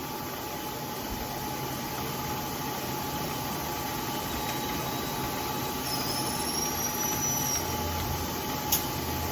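Bridgeport milling machine running steadily while the table is backed out of the cut. A faint high squeal comes in about six seconds in, and a single click sounds near the end.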